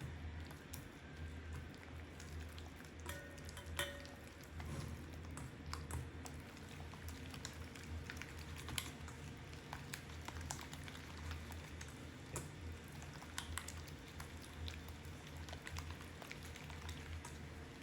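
Faint, scattered light clicks and taps of kitchen dishes and utensils being handled, over a low steady hum.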